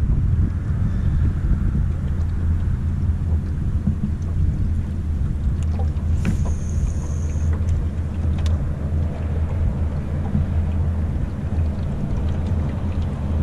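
A steady low rumble with a low hum throughout. About six seconds in, a sharp click is followed by a high whine lasting about a second and a half, as a fishing reel's spool pays out line on a cast.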